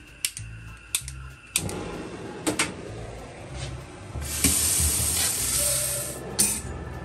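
A few sharp clicks as a gas stove's burner knob is turned to light it, then a kitchen mixer tap runs with a steady hiss of water for about two seconds, shut off near the end.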